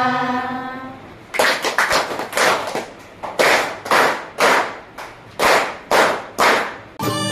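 A roomful of students clapping their hands together in rhythm, about two claps a second, each clap a little ragged from many hands not quite in step. A chanted song fades out just before the clapping, and music starts near the end.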